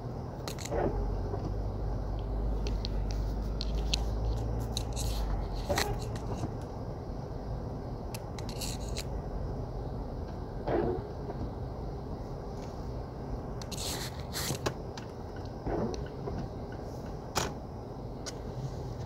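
Outdoor city ambience on a snowy day: a steady background hiss with a low vehicle engine rumble for the first five seconds or so, and scattered short clicks and scrapes throughout.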